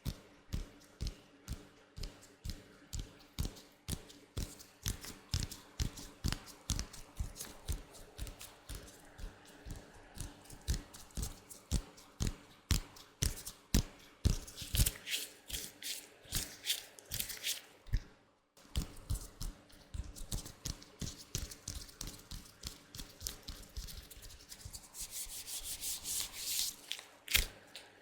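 Latex-gloved hands rubbing and tapping close to the microphone in short, sharp strokes, about two or three a second. There are stretches of louder, hissier rubbing about halfway through and again near the end, and a brief dropout about two-thirds of the way in.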